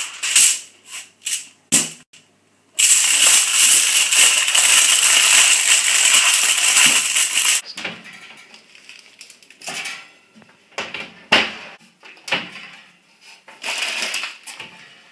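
Aluminium foil crinkling and crumpling close up, loud and dense for about five seconds. Then scattered knocks and clicks as an oven door is opened and handled.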